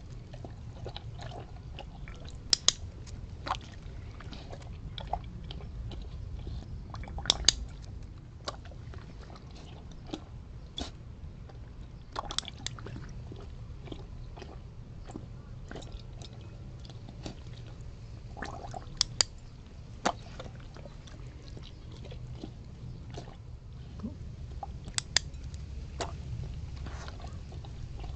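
A Weimaraner with its nose in a glass bowl of water, blowing bubbles, making wet mouthing and water sounds over a low rumble. Sharp clicks come every few seconds, several of them in close pairs.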